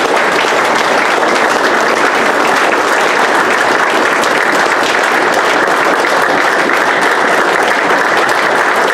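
Audience applauding, many people clapping steadily without a break.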